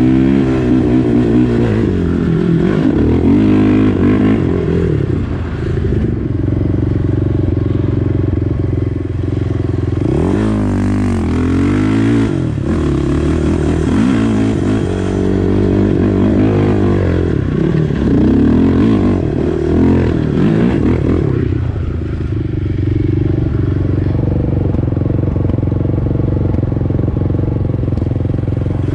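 Honda TRX450R quad's single-cylinder four-stroke engine under riding load, its pitch rising and falling again and again as it revs. It settles to a steadier drone for the last several seconds.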